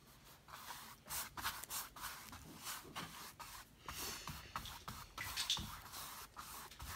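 Large paintbrush scrubbing acrylic paint across stretched canvas in a run of quick, irregular strokes, blending blue, turquoise and teal together.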